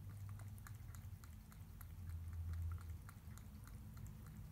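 Cat eating wet food from a stainless steel bowl: quick, wet chewing and small mouth clicks, with a low hum underneath.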